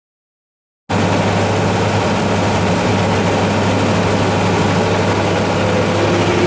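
Off-road 4x4 engine running steadily as the vehicle crawls through a muddy course. The sound cuts in suddenly about a second in.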